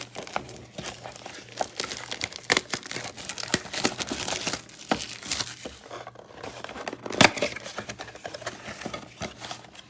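Plastic wrapping on a blaster box of trading cards crinkling and tearing as it is opened, in irregular crackles with one sharp, loud crackle about seven seconds in.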